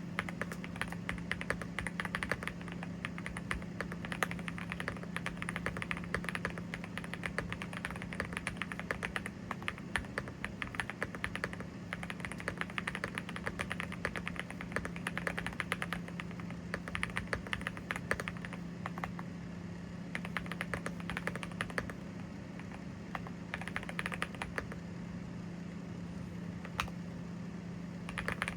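Rapid continuous typing on a Yunzii AL68 mechanical keyboard with Gateron Zero linear switches: a dense patter of keystrokes with brief pauses, over a steady low hum.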